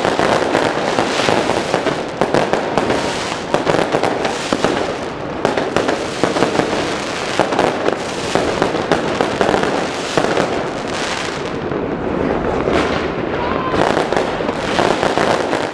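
Fireworks going off: a dense, continuous crackling with many sharp pops and bangs close together.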